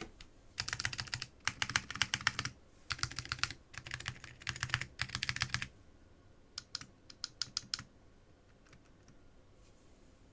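Typing on a Duck Orion V2 mechanical keyboard with orange Alps switches (paper-modded, lubed with Nyogel, dual-stage springs) and SGI Granite keycaps. Several fast runs of keystrokes for about five seconds, then a few single key presses before it stops.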